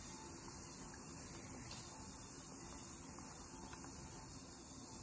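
Faint steady hiss and low hum with no distinct events: room tone.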